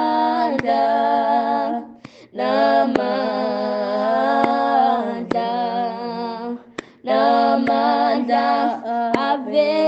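A woman singing a gospel hymn to Jesus in long, held notes, in three phrases broken by short pauses for breath, heard as a recorded voice note.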